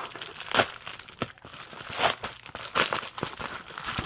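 A crinkly mailer package being torn open and its wrapping rustled by hand, in irregular crackling bursts.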